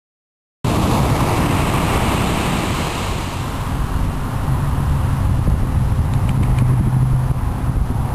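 Ocean surf breaking on a sandy beach, with wind buffeting the microphone as a heavy, uneven rumble; it starts abruptly about half a second in and then runs steadily.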